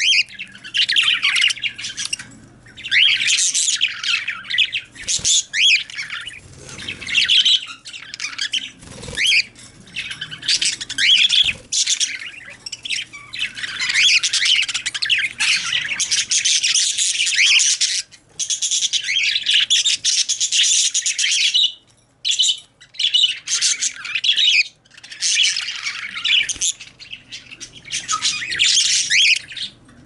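Budgerigars chattering and warbling, a near-continuous stream of fast, high chirps and squawks that breaks off only briefly a few times.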